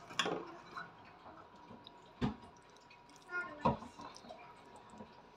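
Metal spoon spreading moist mince filling over bread in a sandwich press: soft wet scraping and squishing, with a few light knocks of the spoon, the clearest about two seconds and three and a half seconds in.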